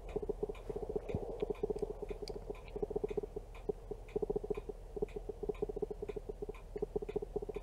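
Camera autofocus motor buzzing in rapid, uneven bursts as it keeps hunting for focus, with a clock ticking faintly about twice a second.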